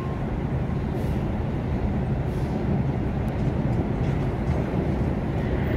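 Subway trains approaching on elevated steel tracks: a steady low rumble of wheels on the rails.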